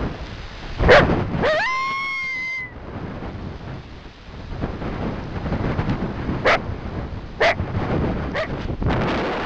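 Trapped coyote calling: a sharp bark about a second in, then a rising whine that holds its pitch for about a second and cuts off, and three short barks in the second half. Wind rushes on the microphone throughout.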